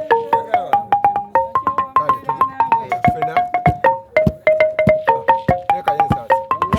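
Traditional Ugandan wooden xylophone played with rapid mallet strokes in a fast repeating pattern of short pitched notes, joined by a few deep low strokes.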